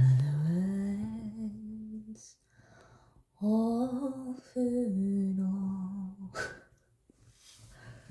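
A woman singing two long, drawn-out notes without clear words: the first slides upward and holds, the second wavers and dips lower near its end.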